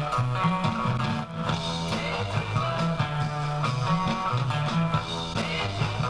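Rock music with guitar, bass and drums played from a cassette through a homemade transistor amplifier and loudspeakers. It sounds jumpy, which the builder thinks comes from his homemade power supply not providing enough current.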